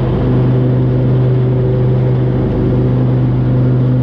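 Riding lawn mower's engine running steadily at a constant pitch while cutting grass.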